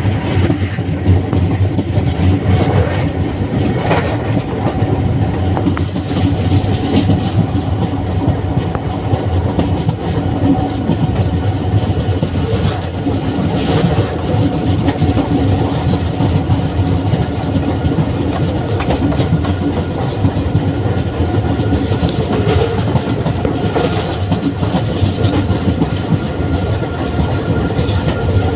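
Train running steadily along the track, heard from aboard: a continuous rumble of wheels on rails with scattered clicks of the wheels over rail joints.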